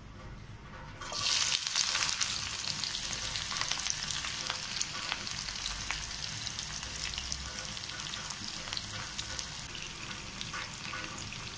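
Sliced onions hitting hot cooking oil in a frying pan about a second in. A sudden sizzle settles into steady frying, full of fine crackles, and eases off slightly toward the end.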